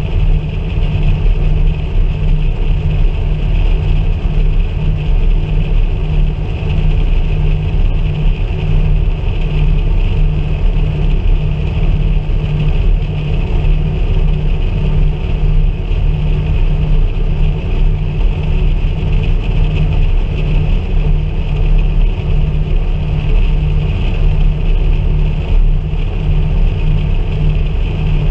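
Lockwood AirCam's twin engines and propellers running steadily in flight, with an even pulsing about twice a second.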